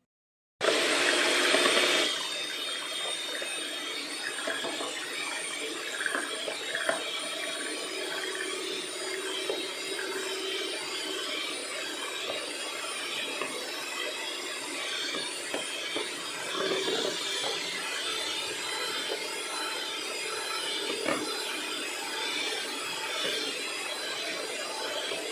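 Electric mixer beating six eggs with a pinch of salt, whipping them to a froth. It starts abruptly about half a second in, louder for the first second or so, then runs steadily.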